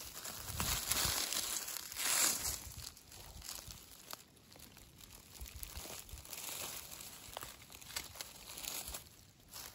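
Dry fallen leaves crinkling and rustling under a hand as it clears the leaf litter around a summer porcino and grips the mushroom; louder for the first couple of seconds, then fainter scattered crackles.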